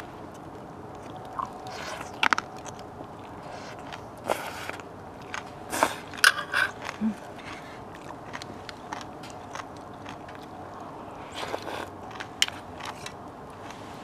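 Close-up eating sounds: chewing and biting, with a spoon and utensils clinking now and then against stainless steel bowls and cups, a few of the clinks ringing briefly.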